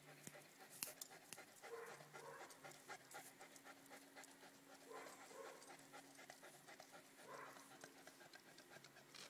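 A St. Bernard panting faintly, with scattered small clicks throughout.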